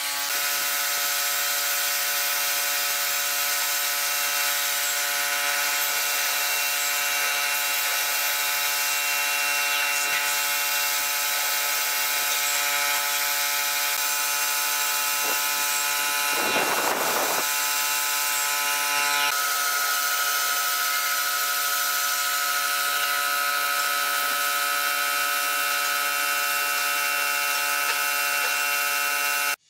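Air-fed spray gun hissing steadily as it sprays finish onto a wooden door, over a steady pitched machine hum.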